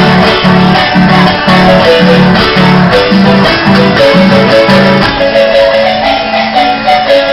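Loud amplified music from the stage, with a bass line pulsing about twice a second that drops away about five seconds in, and a keyboard-like melody above it.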